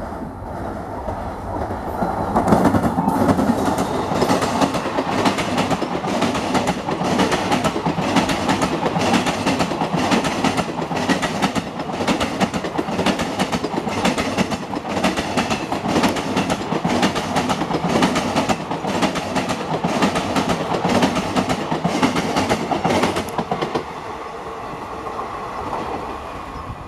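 Express passenger train passing close by at speed: the coaches' wheels clatter over the rail joints in a fast, steady rhythm. The sound swells about two seconds in and dies away a few seconds before the end as the train pulls away.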